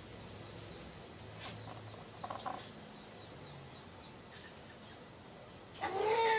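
Kampung (village) chickens: a few faint short chirps and calls, then near the end one louder call that rises and falls in pitch.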